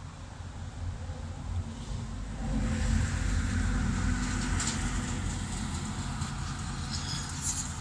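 A heavy truck passing on the road, its engine and tyre rumble building about two seconds in, loudest around three seconds, then slowly fading.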